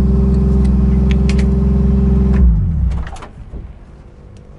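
Nissan Cefiro A31 drift car's straight-six engine idling loudly. About two and a half seconds in it is switched off and winds down, the pitch falling as it stops. A few clicks follow as the driver's door is opened.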